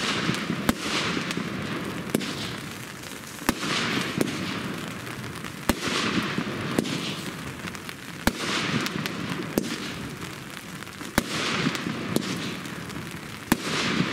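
The Ruff Ride consumer firework battery firing aerial shots one after another, about one every second and a half. Each shot is a sharp bang followed by a fizzing hiss that fades over about a second as the burst spreads.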